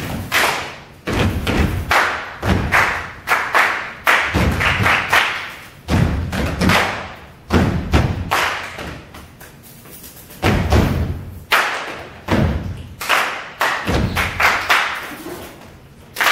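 A group of performers doing body percussion in unison, stomps and hand claps, hitting together in an irregular rhythm. Each hit rings on in the hall, and the hits thin out into a quieter stretch about halfway through.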